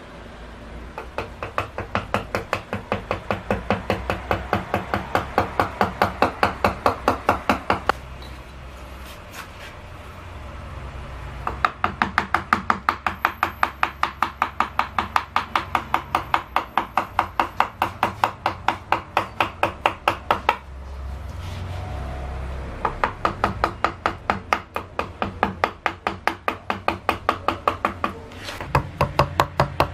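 Round wooden carving mallet striking the handle of a gouge, cutting into cedar wood. The light, sharp knocks come about four a second in runs of several seconds, with short pauses between runs.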